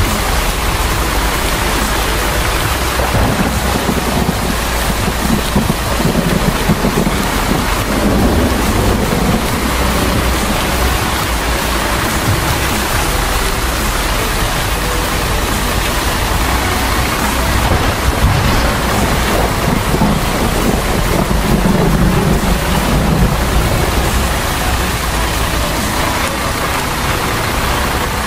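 Steady heavy rain, a dense hiss, with a low rumble underneath.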